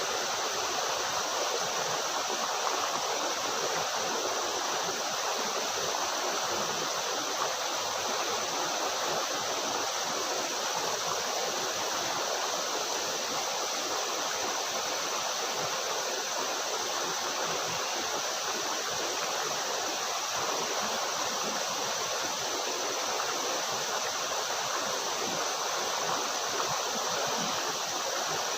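Waterfall's rushing water, a steady, even rush with no breaks.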